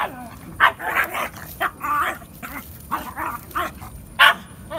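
Pug barking, a run of about ten short, irregularly spaced barks, the loudest one near the end.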